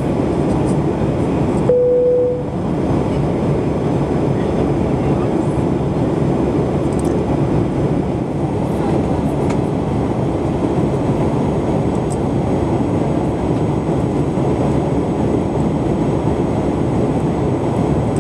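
Steady rumble of cabin noise inside a Boeing 737-800, with a single short tone about two seconds in.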